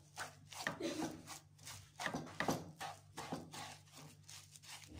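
A utensil scraping and stirring a thick, grainy semolina-and-sugar mixture around a nonstick frying pan, in quick strokes two or three a second, over a faint low hum.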